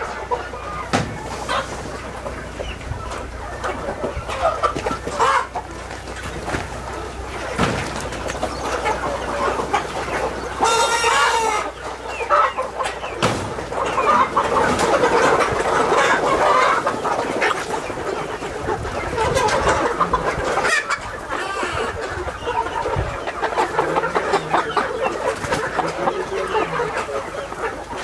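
A large flock of desi chickens, hens and roosters, clucking continuously with many overlapping calls. One bird gives a loud call about ten seconds in.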